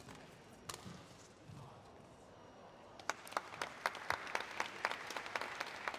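A sharp hit and a few low thuds of play on a badminton court in the first seconds. From about three seconds in, the arena spectators clap, many quick claps, after the point ends.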